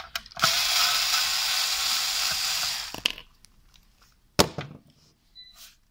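A small electric screwdriver runs for about two and a half seconds, undoing the screw that holds the tiny PC's cover, followed by a couple of sharp clicks.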